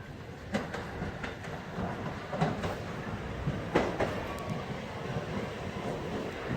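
New York City subway train running, a steady low rumble with a few irregular clacks and knocks from the wheels passing over rail joints, the loudest about four seconds in.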